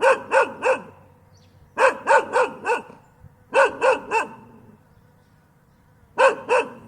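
A dog barking in quick runs of two to four barks, about three a second, with short pauses between runs.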